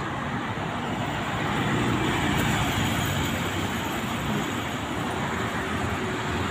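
Steady road traffic noise from a busy city street, swelling a little about two seconds in.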